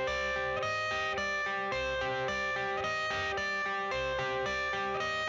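Background music: a guitar-led instrumental intro with a steady beat.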